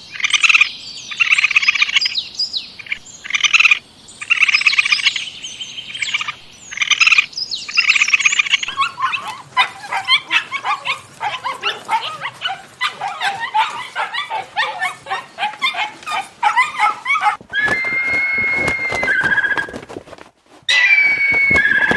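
A run of different animal calls. First come loud, high calls in groups with short breaks, then a dense chatter of rapid chirps, and near the end steady whistle-like calls.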